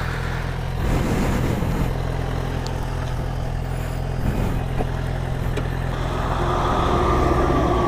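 Motorcycle engine running with a steady low hum, growing louder about six seconds in as it is revved to pull away.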